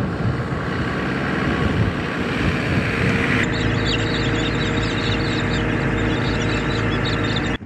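Four-wheel drive running along a dirt track: a steady engine hum under tyre and road noise. The sound changes abruptly about halfway through, with a rattly hiss added, and drops away sharply just before the end.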